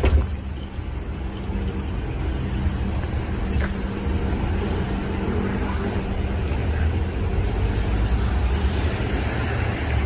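Street traffic with a vehicle engine running steadily, a low rumble with an even hum under it; a short thump right at the start.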